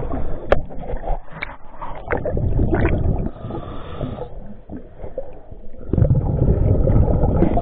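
A diver breathing underwater: gurgling, rumbling bursts of exhaled bubbles. One long burst fills the first three seconds or so and another comes about six seconds in, with a quieter hiss between them.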